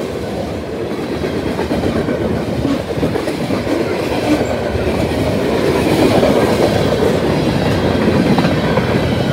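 Freight cars of a CN mixed freight train rolling past at speed: a steady rumble with wheels clicking over the rail joints, growing gradually louder as the last cars go by.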